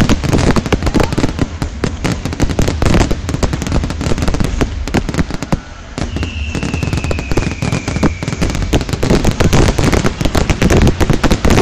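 Fireworks going off in a dense, rapid barrage of bangs and crackles over a low rumble. A high whistle falls slowly in pitch for about three seconds near the middle.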